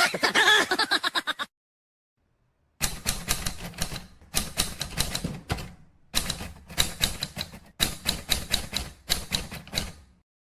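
Rapid typing keystrokes, typewriter-like, in five bursts of quick clicks, each about a second long with short pauses between. Before them, a voice-like sound effect cuts off about a second and a half in.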